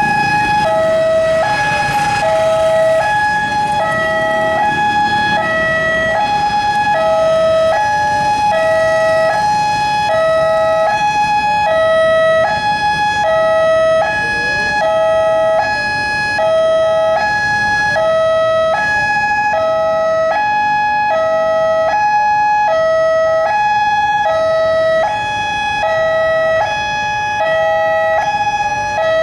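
Railway level-crossing warning alarm sounding: a loud electronic two-tone hi-lo signal that alternates between two pitches about once a second, with road traffic underneath.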